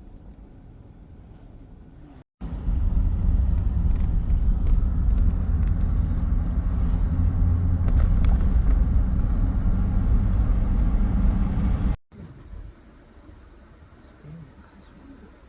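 A car on the move: a loud, steady low rumble. It starts and stops abruptly between two quieter stretches of the same kind of running noise.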